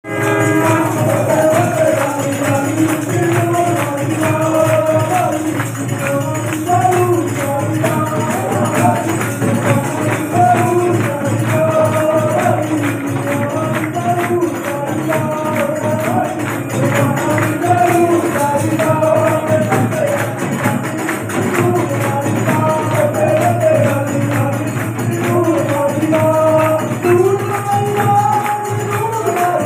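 Hindu devotional jagran bhajan: a sung melody over continuous rhythmic hand percussion, with the congregation clapping along.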